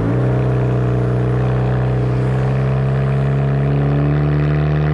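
Kia Rondo exhaust note while driving, a steady engine drone heard close to the car. The pitch steps up suddenly at the start and then rises slowly as the car accelerates.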